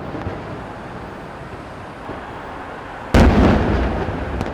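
Aerial fireworks: a quiet stretch, then a shell bursts with a sudden loud boom about three seconds in, its rumble slowly dying away.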